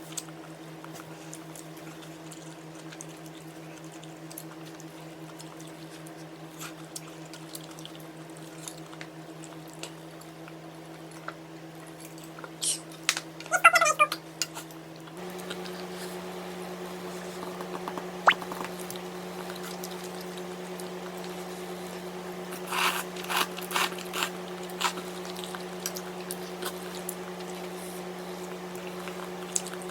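Eating at a hot pot meal: soft squishy mouth and liquid sounds and small utensil clicks over a steady hum that steps up in pitch about halfway through. Just before the step comes a short squeaky sound that bends in pitch, the loudest moment, and later a quick cluster of clinks.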